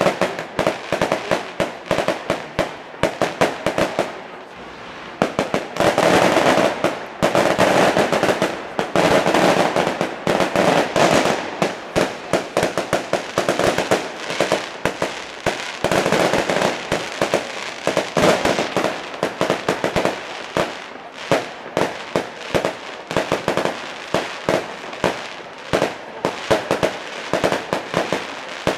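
Fireworks display: aerial shells bursting in a rapid, unbroken run of sharp bangs and crackling, with thicker stretches of crackle a few seconds in and again past the middle.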